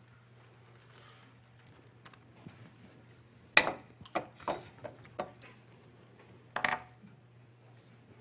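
Handling noise close to the microphone: a string of knocks and bumps, the loudest about three and a half seconds in and again near seven seconds, over a steady low electrical hum.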